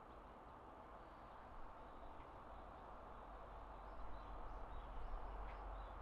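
Faint outdoor ambience: a steady hiss with scattered faint, high bird chirps, more of them in the second half, over a low rumble that grows louder after about four seconds.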